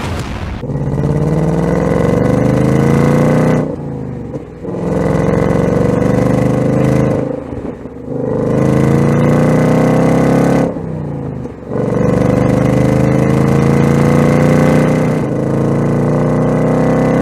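Ford Mustang Dark Horse's 5.0-litre Coyote V8 accelerating hard through the gears, loud. Its pitch climbs in four long pulls, broken by three short drops at the shifts.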